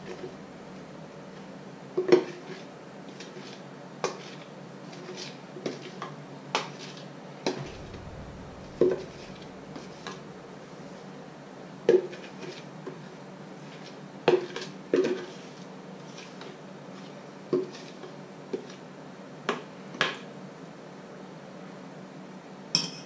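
Wire whisk clinking and knocking against a metal mixing bowl and a plastic measuring jug while batter is poured and stirred: irregular sharp taps, roughly one every second or so, over a faint steady hum.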